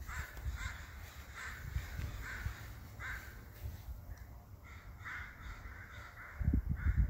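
A bird giving repeated crow-like caws, about two a second with a short pause midway. Near the end a loud low rumble on the microphone.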